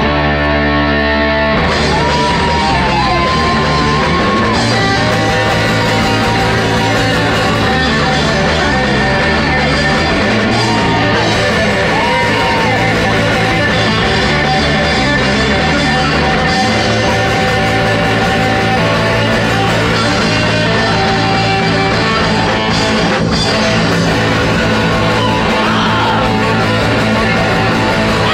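Live death metal band playing: heavily distorted electric guitars over a drum kit, loud and dense, with a few bent notes that rise and fall near the start and again partway through.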